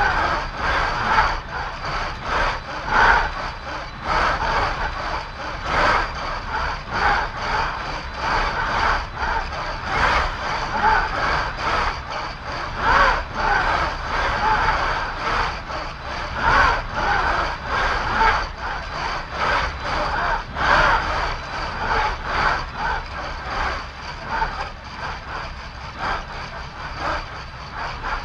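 Electric servo actuators of a six-degree-of-freedom motion simulator platform whirring in short repeated pulses as the cabin tilts and shifts, over a steady high whine and a low rumble.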